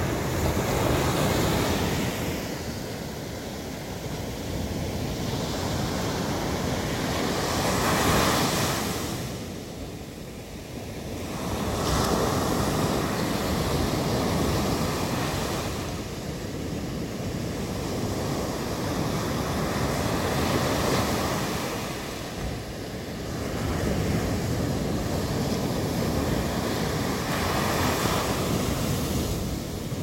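Sea waves breaking and washing up a sandy beach, the surf rising and falling every several seconds.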